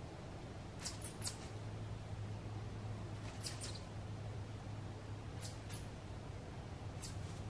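Short, high-pitched chirps from a small animal, coming in quick groups of two or three a couple of seconds apart, each note dropping in pitch, over a low steady hum.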